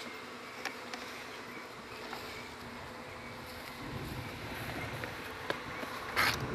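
Steady faint buzzing hum. Low rumble of wind and handling noise builds from about four seconds in, with a few sharp rustles near the end.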